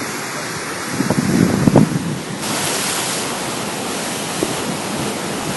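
Ocean surf washing on a rocky shore, with wind buffeting the microphone in louder gusts between one and two seconds in.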